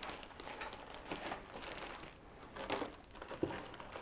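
Plastic zip bags of screws and metal parts rustling and crinkling as they are handled and lifted out of a cardboard box, with scattered small knocks.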